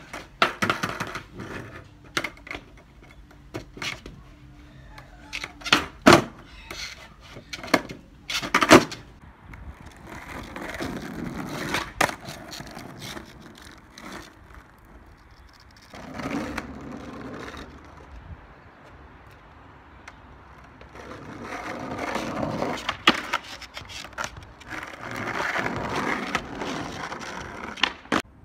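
Skateboard tricks: repeated sharp pops and clacks of the deck, with the board slapping down onto paving, clustered in the first nine seconds. Then the wheels roll in longer rumbling stretches over rough asphalt, broken by a few more pops.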